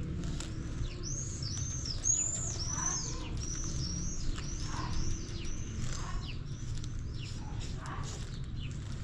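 A songbird calling a rapid run of high, arched chirps, about two to three a second, starting about a second in and thinning out toward the end, over a steady low rumble.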